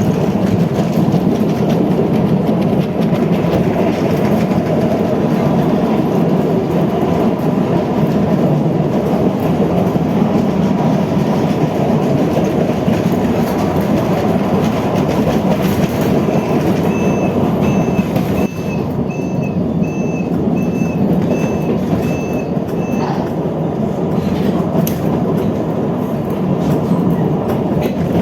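Train running sound effect: a steady low rumble with wheel clatter on the rails. Partway through, a series of about eight short, evenly spaced high beeps sounds over the rumble for several seconds.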